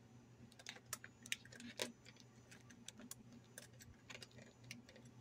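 Faint, irregular light clicks and taps of small parts being handled, as a capacitor is set up on a meter to be read.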